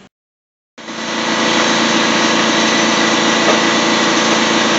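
A machine running steadily, with an even, engine-like hum. It comes in abruptly after nearly a second of silence.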